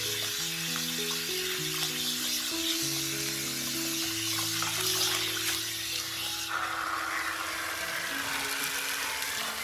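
Water from a garden hose running into a metal bowl as ramps are washed in it, with background music of sustained notes over it. About two-thirds of the way through, the water sound changes as the hose is held over the leaves.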